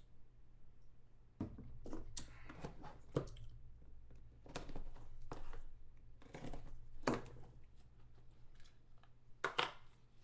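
Craft knife scratching and slicing through the seal of a sealed trading-card box, with several sharp knocks and clicks as the box is handled and pulled open.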